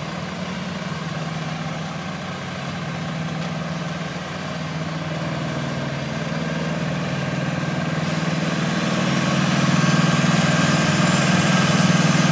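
Heavy engines of asphalt paving machinery running steadily, growing louder about eight seconds in.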